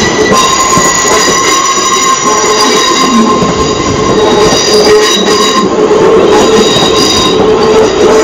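South Western Railway Class 450 Desiro electric multiple unit moving close past along the platform: a steady rumble of the running gear with a high-pitched squeal of several held tones on top.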